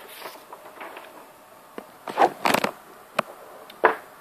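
Handling noise: a cluster of rustles and knocks about two seconds in, then single clicks about three and four seconds in, from hands moving the camera and paper.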